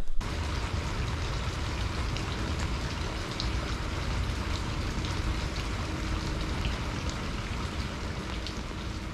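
Steady rain falling on a muddy puddle and wet ground, with a few separate drop ticks standing out now and then.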